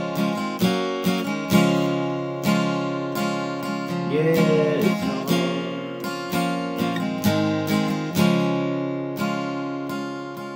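Acoustic steel-string guitar strummed by hand in a steady pattern, each stroke followed by ringing chords.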